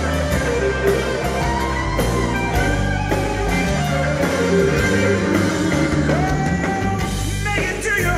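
Live electric blues band playing: a semi-hollow electric guitar plays lead lines over bass and drums.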